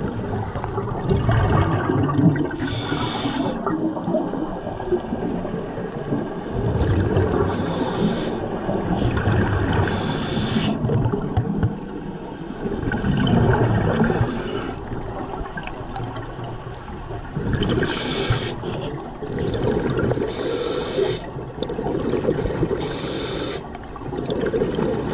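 Scuba divers breathing through regulators underwater: a hiss with each breath every few seconds, between the gurgle and rumble of exhaled bubbles, muffled through the camera's underwater housing.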